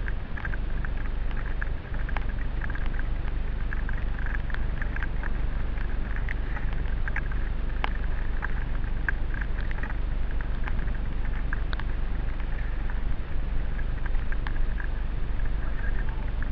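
Mountain bike riding fast down a dirt and gravel track, heard from a helmet-mounted camera: a steady wind rumble on the microphone under the rolling noise of the tyres, with frequent sharp clicks and rattles from gravel and the bike.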